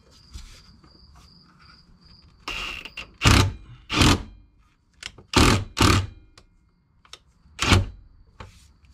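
Cordless impact wrench fired in about five short bursts, a few seconds apart, snugging the bolts of a driveshaft centre support bearing bracket.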